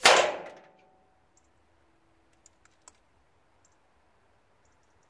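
Air Arms S510 SL carbine .22 PCP air rifle firing a single shot: one sharp report at the very start that dies away within about a second. A few faint clicks follow about two and a half seconds in.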